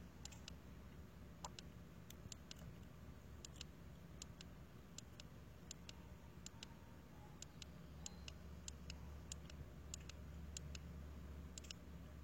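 Faint, sharp clicks, mostly in quick pairs, repeating fairly evenly about every half second to second over a low steady hum.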